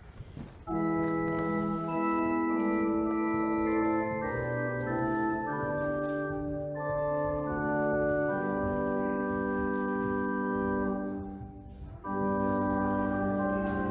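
Church organ playing slow, sustained chords, starting under a second in and breaking off briefly near the end before the next phrase.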